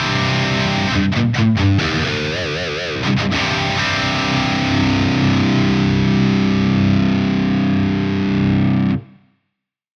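High-gain distorted electric guitar through an EVH 5150 III–style amp simulation. A quick lead phrase with wide vibrato is followed by a held low chord that rings for about five seconds and is cut off sharply near the end.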